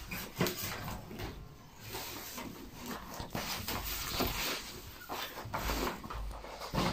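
Rustling of a padded fabric gig bag and handling knocks as an acoustic guitar is pulled out of it.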